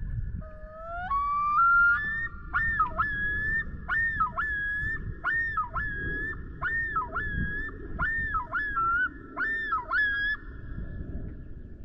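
Common loon giving the male's territorial yodel: a few rising opening notes, then a long string of repeated two-note phrases that stops about ten seconds in. A low wind rumble on the microphone runs under it.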